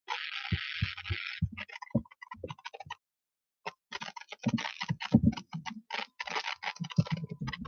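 Irregular clicks and soft taps of typing on a computer keyboard, after a short hiss at the start. The sound cuts out completely for under a second about three seconds in.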